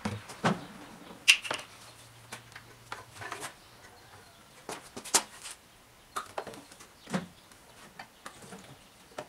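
Scattered clicks, taps and light knocks of a plastic siphon hose and a plastic jug being handled as the hose is run from a scooter's fuel tank down to the jug.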